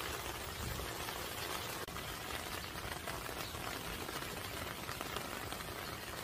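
Steady rain falling on garden plants: an even hiss made of many small drop hits.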